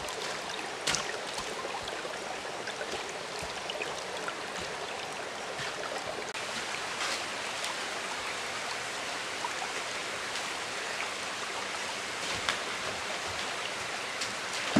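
Shallow jungle stream running over rocks: a steady rushing hiss. A few short, faint knocks stand out over it, the clearest about a second in and another near the end.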